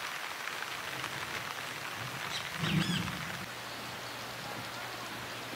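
Steady rain falling, an even hiss of drops. About halfway through, a short chirping call rises briefly over it.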